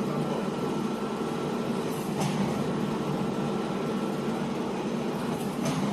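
Wire mesh welding machine running with a steady mechanical hum, with a short hiss about two seconds in and again near the end.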